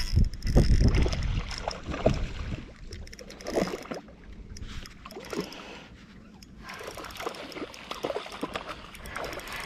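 Spinning reel being wound in against a small hooked tailor, with the fish splashing at the surface. A low rumble is loudest in the first second or so.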